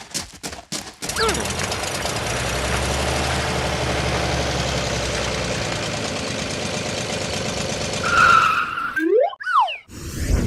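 A steady engine-like rumble with hiss runs for about eight seconds and then stops abruptly. It is followed by a brief high tone and then cartoon 'boing' sound effects that slide up and down in pitch.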